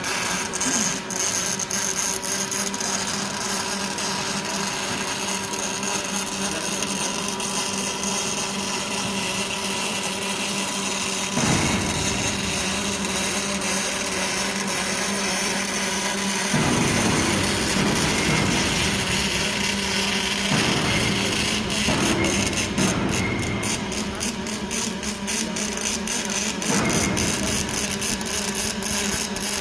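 Robotic MIG welding cell running: a steady machine hum and hiss. A deeper rumble joins about eleven seconds in and grows around sixteen seconds. Rapid crackling comes later on.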